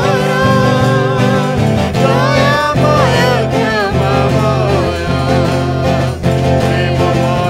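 A man and a woman singing an Odia Christian worship song to a twelve-string acoustic guitar.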